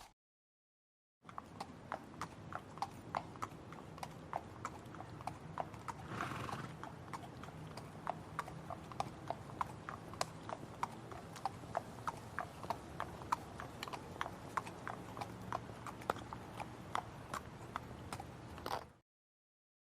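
Horse's hooves clip-clopping in a steady, even rhythm of about three strikes a second, with a short breathy noise about six seconds in. It starts after a second of silence and cuts off suddenly near the end.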